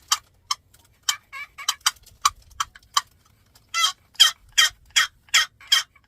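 A handheld friction turkey call being practised by a child, giving a string of short yelps. The yelps are scattered and uneven at first, then about four seconds in become a louder, evenly spaced run of about six.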